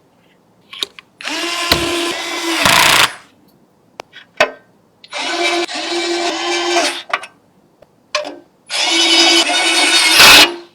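Small electric screwdriver running in three bursts of about two seconds each, driving screws, with a few short clicks between the bursts.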